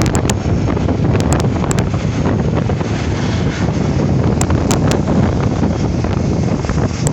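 Wind buffeting the microphone of a motorcycle moving at speed: a loud, steady rush and rumble, with a few brief crackles.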